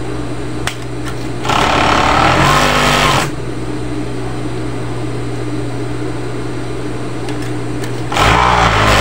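Industrial overlock sewing machine with its motor humming steadily between seams. It runs in two short bursts of stitching, one about a second and a half in lasting nearly two seconds and another starting near the end.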